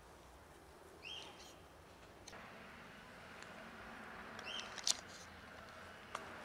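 Dry cat food rattling into a metal tray, building to a sharp clatter past the middle, with a couple of clicks near the end. A short high-pitched call sounds about a second in and again about halfway.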